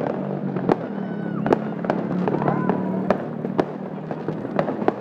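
Fireworks display: sharp bangs of bursting fireworks at irregular intervals, one or two a second, over a steady low hum.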